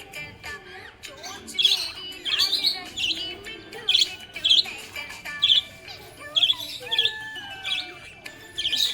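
Budgerigar chirping: a run of short, bright, high chirps, one to two a second, over a lower warbling chatter.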